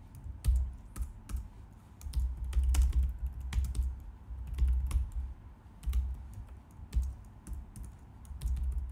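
Typing on a computer keyboard: bursts of key clicks with short pauses between them, each burst carrying a dull low thud.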